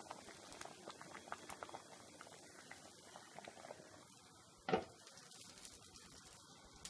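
Pot of sambar simmering, with a light irregular popping of small bubbles and one louder knock about two-thirds of the way through.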